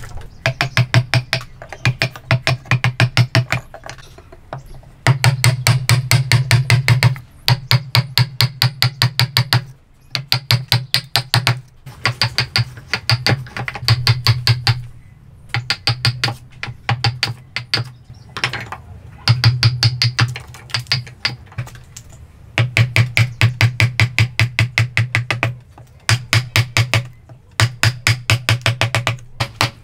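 Wooden mallet striking a chisel that chops into a hardwood block: quick, even blows, about five or six a second, in runs of two or three seconds with short pauses between.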